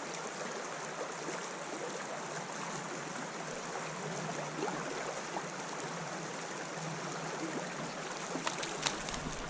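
Spring creek water running steadily, with a few faint ticks near the end.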